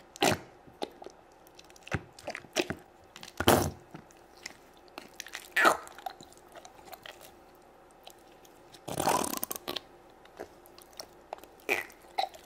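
Fingers poking and squeezing thick slime in a small plastic toy-toilet pot: irregular wet squelches, with a longer squelch about nine seconds in.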